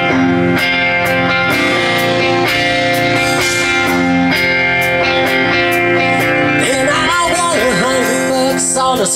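Live band playing a country-rock song: electric guitars over a drum kit with cymbal hits in a steady beat.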